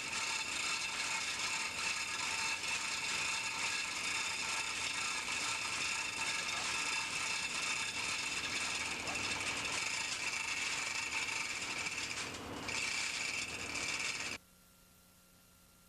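Steady mechanical noise of running machinery, cutting off suddenly near the end.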